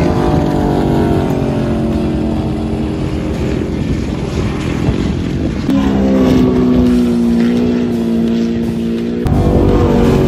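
Off-road race vehicle engines running past at speed, each engine note sinking slowly in pitch. The sound switches abruptly to a different engine about six seconds in and again near the end.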